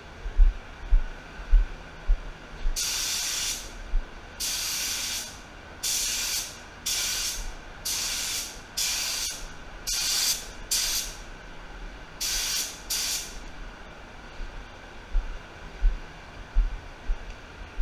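Cup-fed air spray gun hissing in about ten short passes of half a second to a second each, spraying a metallic base coat onto motorcycle parts. Low thumps from handling come before and after the passes.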